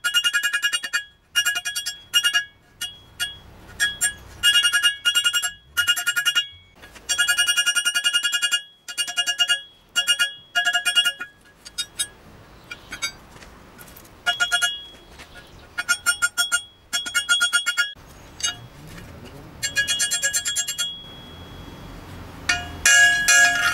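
Hand hammer striking red-hot steel stock on a steel anvil, forging one half of a pair of blacksmith's tongs: runs of quick ringing blows with short pauses between, sparser after the middle and with a loud run near the end.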